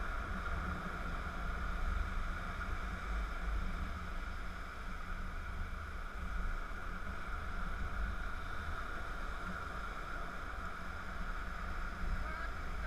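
Steady wash of ocean surf breaking on the beach, with a low, uneven rumble underneath.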